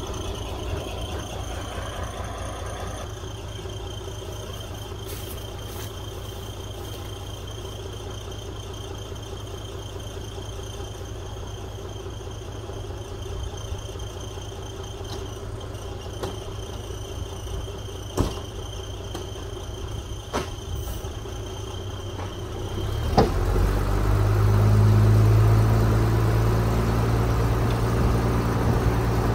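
Hook-lift lorry's engine idling, with a few sharp metallic clicks. About 23 seconds in, the engine note rises and grows louder as the hydraulic hook arm starts pulling a heavy bin of rain-soaked oil palm fruit bunches up onto the lorry.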